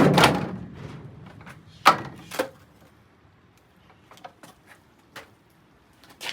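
Hard knocks with a short ringing decay: one loud knock at the start, two more about two seconds in, then faint clicks and rattles, as things are handled in and around a microwave oven.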